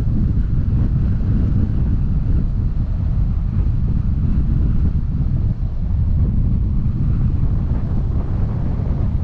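Wind buffeting a microphone mounted on the outside of a moving car, a steady low rumble mixed with the car's tyres running on a gravel road.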